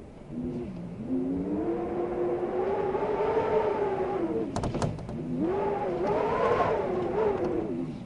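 Wind howling in two long gusts, a pitched moaning tone that rises and falls slowly, with a few sharp clicks between the gusts about four and a half seconds in.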